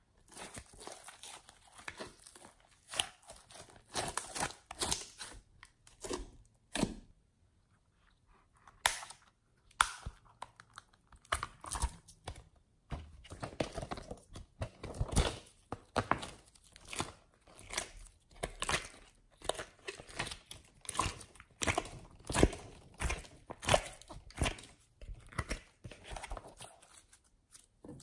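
Sticky slime being squeezed and kneaded by hand, giving irregular wet crackles and pops. There is a short gap about seven seconds in.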